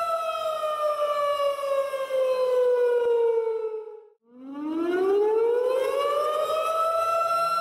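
Outdoor tornado warning siren: a steady tone that winds down in pitch over about four seconds, drops out briefly, then winds back up to its full pitch.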